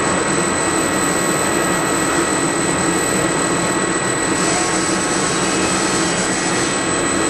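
Fryer ET-21 CNC toolroom lathe running, a steady machine whine from its spindle and drives over a hiss.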